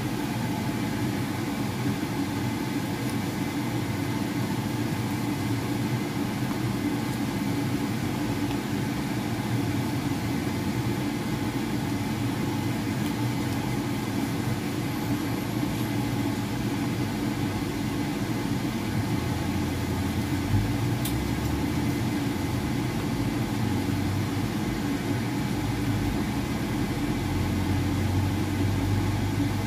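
Steady mechanical hum of a running motor or fan, holding several fixed pitches, with one sharp knock about two-thirds of the way through.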